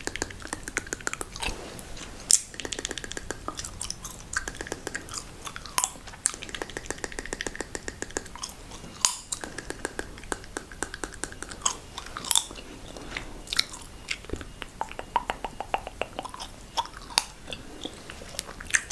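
Close-up wet mouth sounds: quick irregular clicks and smacks with stretches of fast crackling, as in ASMR ear-eating and licking.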